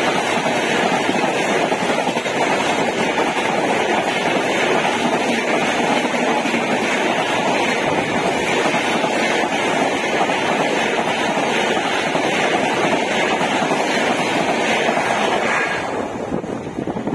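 Passenger coaches of an express train rushing past at speed close by: a loud, steady rush of wheels on rail and moving air, easing off near the end as the train draws away.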